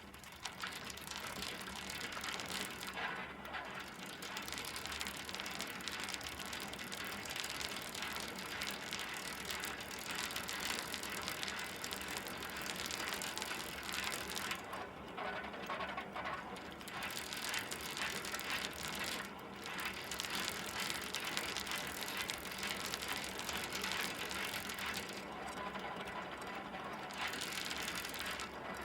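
Bicycle being ridden, its freewheel ratchet ticking and chain drive rattling steadily, with a few short lulls in the high clicking.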